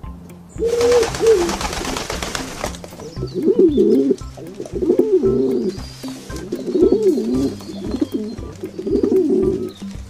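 Rock pigeons cooing: repeated low, gliding coos about once a second, over background music with steady low notes. A rush of noise lasting about two seconds comes near the start.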